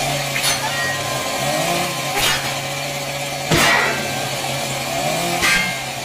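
Chainsaw sound effect running at a steady drone with small rises and falls in pitch, cut by four sharp hits, the loudest about three and a half seconds in.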